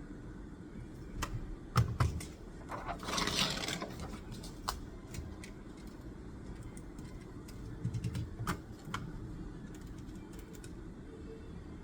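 Scattered clicks and taps of things handled on a study desk, with a short rustle about three seconds in and a cluster of taps near the end, over a steady low room hum.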